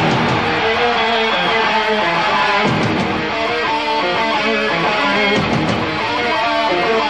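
Background music led by guitar, with a steady run of plucked and strummed notes.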